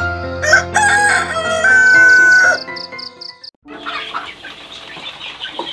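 A rooster crows once, a loud drawn-out cock-a-doodle-doo over soft background music. After a short break, chickens cluck against coop ambience.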